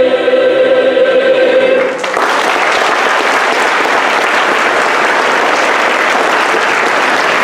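A choir holds its final sung chord, which cuts off about two seconds in. Audience applause follows and continues steadily.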